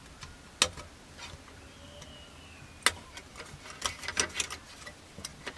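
Side cutters snipping a plastic model-kit wing part free of its runners: a sharp snap about half a second in, a louder one just under three seconds in, then a quick run of smaller clicks a second later.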